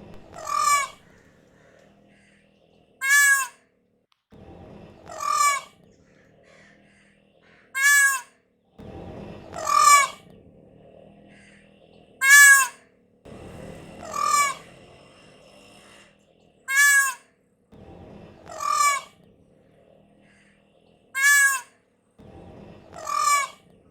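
Peacock calling over and over: eleven loud, wavering, high cries, one about every two and a half seconds.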